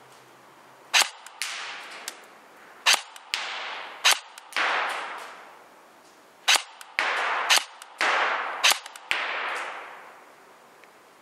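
Real Sword Type 56 airsoft electric gun firing about six single shots at irregular intervals, each a sharp crack followed by a short fading rush.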